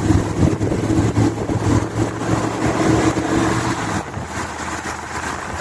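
Vehicle driving at road speed, heard from inside: a steady engine hum with road and wind noise. The engine hum eases off about four seconds in.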